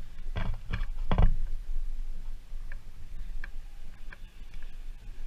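Low rumble of wind on the camera microphone, with a few sharp knocks in the first second or so, the loudest about a second in, and fainter ticks after.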